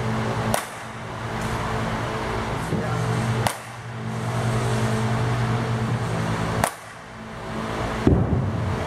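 Softball bat cracking against softballs in batting practice: three sharp cracks about three seconds apart and a heavier thud near the end, over a steady machine hum.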